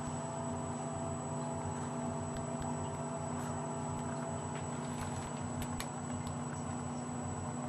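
An engine running steadily at one speed, a constant hum, with a few faint clicks about five to six seconds in.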